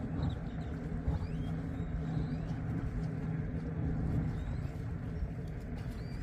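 Wind rumbling on the microphone, with a steady low drone of a distant motor running under it for a few seconds. Faint short rising chirps from birds come through now and then.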